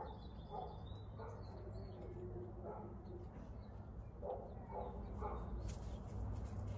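Faint bird calls, a few short ones scattered over several seconds, over quiet background noise with a low steady rumble.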